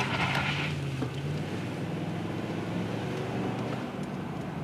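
Car engine running steadily as the vehicle drives, with a brief burst of noise right at the start.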